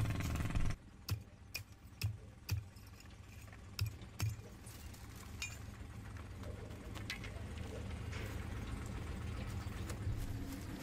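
A loud noisy stretch cuts off abruptly under a second in. It is followed by six sharp knocks, irregularly spaced over about three seconds, over a low steady rumble that slowly grows louder.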